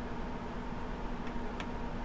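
Two light plastic clicks in the second half as a hand presses down on a replacement laptop keyboard being seated, over a steady electrical hum and hiss.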